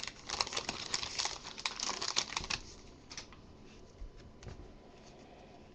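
Trading-card pack wrapper crinkling as it is worked open and the cards are pulled out, fading about two and a half seconds in to a few light clicks and taps of cards being handled.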